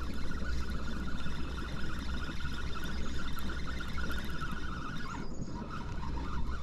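Spinning fishing reel being cranked while reeling in a hooked small fish, a thin steady whirring whine that breaks off about five seconds in and resumes a little lower. Wind buffets the microphone throughout as a constant rumble.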